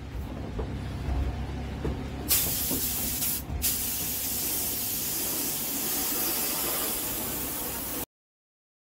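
Cheap Harbor Freight air spray gun, fed by a compressor hose, hissing as it sprays paint. It starts about two seconds in, stops briefly a second later, then runs steadily until the sound cuts off abruptly near the end.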